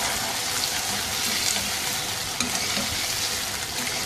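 Chicken pieces sizzling in hot oil in a wok while a spatula stirs them through, with small scrapes and clicks over a steady frying hiss.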